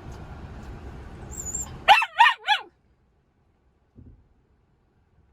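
A small dog yaps three times in quick, high-pitched succession about two seconds in, just after a brief high whine. Before that a car's low cabin hum is heard, and the sound cuts off abruptly after the yaps.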